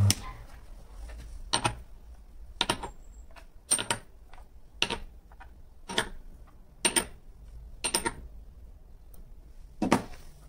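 A bench friction tester's electric motor hum cuts off right at the start. Then come about eight sharp metal clinks, roughly one a second, as the slotted test weights are lifted one by one off the hanger on the tester's load lever.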